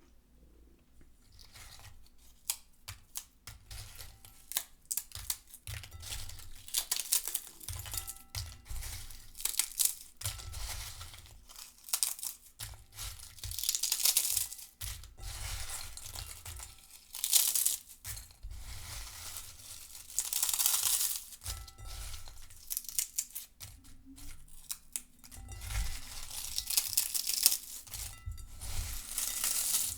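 Lay's potato chips rustling in a bowl, a crisp crackling and crinkling that comes in irregular surges with brief lulls, starting after about a second and a half.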